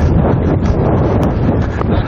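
Wind buffeting the microphone: a loud, steady, deep rumble.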